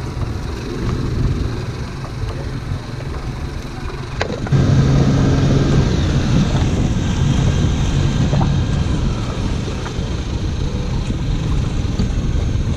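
Twin Suzuki 150 outboard motors running steadily at low speed, a low hum under wind and water noise; the engine sound gets louder about four and a half seconds in.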